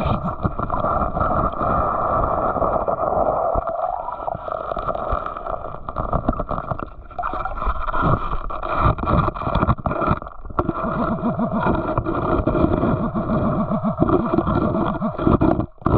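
Water sloshing and gurgling around the microphone, with irregular knocks and scrapes, as someone wades and works a metal detector in a creek.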